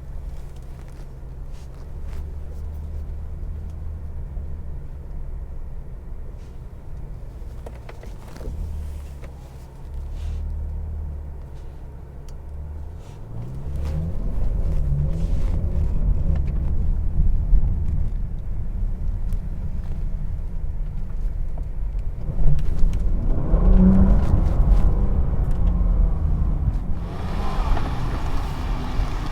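Bentley Continental GT's 6.0-litre W12 engine running low and steady while the car pulls away slowly. From about 13 seconds in it accelerates, its note rising and falling, with the loudest push about two-thirds of the way through.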